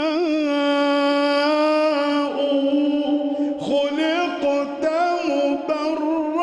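A man's solo unaccompanied voice singing an Islamic devotional chant (inshad in praise of the Prophet), holding one long note with small wavering ornaments, then breaking into a run of shorter melismatic turns from about two seconds in.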